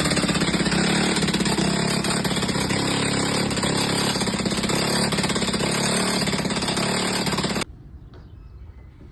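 Hammer drill boring into concrete: a loud, steady, rapidly pulsing hammering that cuts off suddenly about seven and a half seconds in, followed by a few faint knocks.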